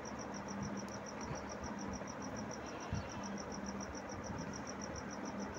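An insect, cricket-like, trilling in a steady, even high pulse of about nine beats a second over a faint background hiss.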